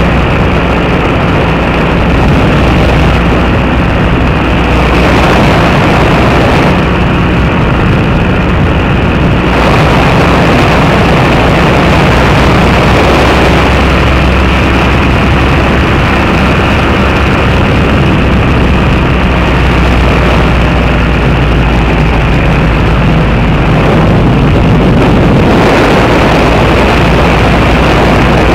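Two-seat paratrike's engine and propeller running steadily in flight, with a rushing noise that swells and eases in stretches over the engine drone.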